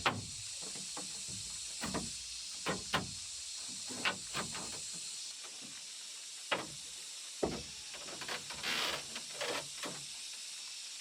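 A dozen or so short, irregular knocks and taps over a steady high hiss, with a quick flurry of them near the end.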